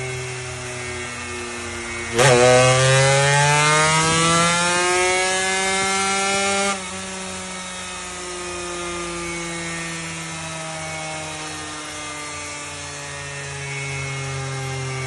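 Engine idling with a steady note. About two seconds in it is suddenly revved hard, the pitch climbing for a couple of seconds and holding high, then it drops abruptly back to idle near the seven-second mark and idles on.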